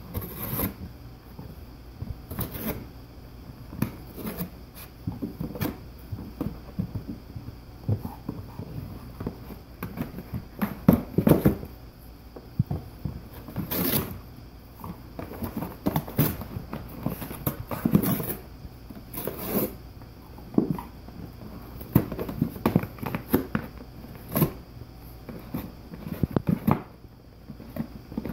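Golden retriever chewing and tearing apart a cardboard cereal box: irregular rips and crinkles of cardboard, coming in quick clusters with short pauses between.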